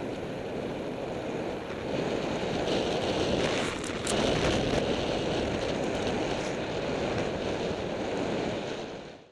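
Wind rushing over the microphone of a camera on a road bike moving at speed, mixed with tyre and road noise. A few brief ticks come about four seconds in, and the sound fades out at the end.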